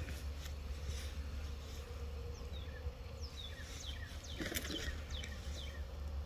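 Honey bees buzzing at a hive entrance as a just-moved colony flies out to reorient, with one bee buzzing close past about four and a half seconds in. A steady low rumble lies underneath, and a run of short, high, falling chirps comes in the middle.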